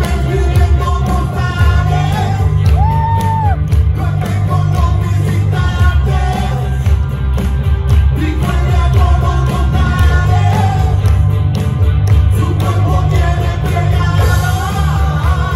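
A live band playing a song on drums, bass, electric guitar and keyboards, with a lead melody that bends and glides between notes over a steady beat.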